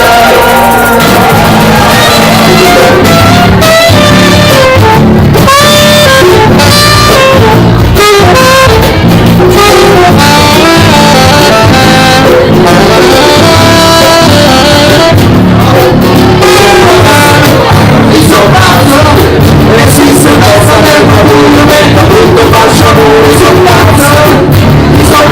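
Live band playing loud music, with a melody line moving over a steady beat. It is recorded on a mobile phone and sounds harsh and distorted, overloaded near full volume.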